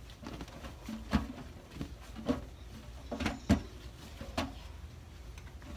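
Irregular soft knocks and wet slaps as a soaked cotton tie-dyed shirt is unfurled and handled in a stainless steel sink, the loudest about three and a half seconds in.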